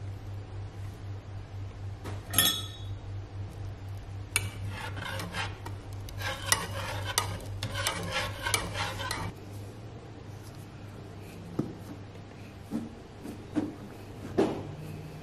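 Wire whisk scraping and clinking against a metal saucepan as a thick mixture is stirred, over a steady low hum that stops about nine seconds in. Near the end come a few soft knocks as pastry is pressed into a metal tart tin.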